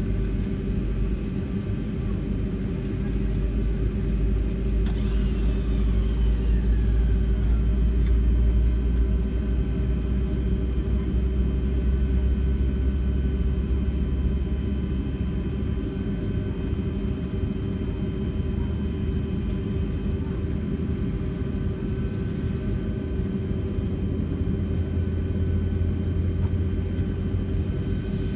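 Boeing 757-300 jet engines at taxi power heard inside the cabin: a steady low rumble with a constant engine whine. A brief falling whine comes about five seconds in, and the low drone shifts in pitch about halfway through.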